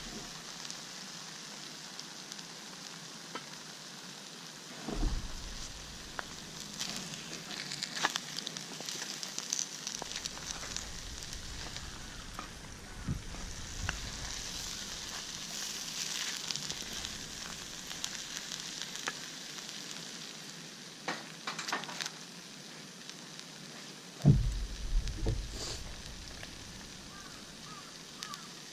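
Food sizzling in a pan over a campfire, a steady hiss with scattered crackles. A few dull knocks come through it, once about five seconds in and loudest near the end.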